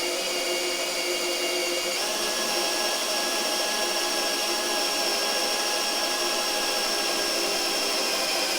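Electric drill with a small, roughly 4 mm bit running steadily as it drills through a barrel's metal hoop. The motor whine steps up in pitch about two seconds in.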